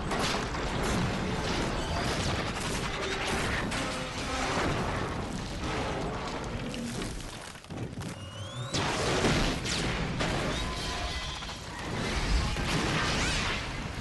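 Action-film soundtrack of explosions and crashing debris, with score music underneath. After a short lull a thin rising whine sounds about eight seconds in, followed by a loud blast.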